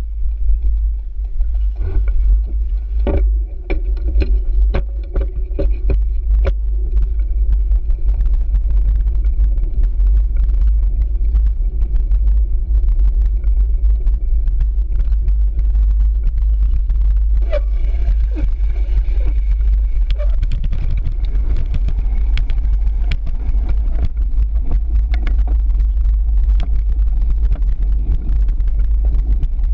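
Cyclocross bike ridden over a bumpy dirt trail: a heavy, steady low rumble of wind and vibration on the handlebar microphone, with frequent rattles and knocks from the bike over the rough ground.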